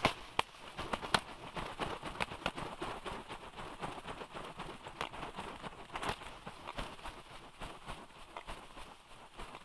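Juvenile black storks flapping and stepping about on their stick nest: a steady rustle of wingbeats and feathers with many sharp clicks and knocks from feet and twigs.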